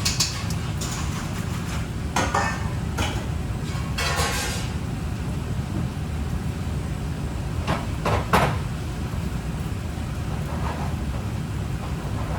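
Kitchen utensils and cookware knocking and clattering in short, irregular bursts over a steady low rumble, with a sharper pair of knocks a little after the middle.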